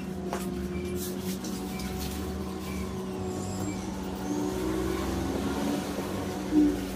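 An engine running with a steady hum and a low rumble that swells about four seconds in, under faint clicks and rustles of tent-curtain fabric being hooked onto its hangers. A short, louder bump comes near the end.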